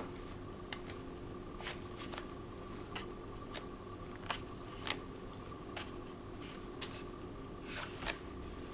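Pages of a large hardback picture book being turned one after another, each turn a short crisp paper flick, about ten in all, over a faint steady hum.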